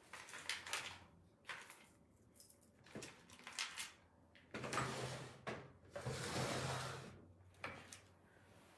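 Handling noise as small items are picked up and moved about: several short rustles and light knocks, with a longer rustle from about four and a half to seven and a half seconds in.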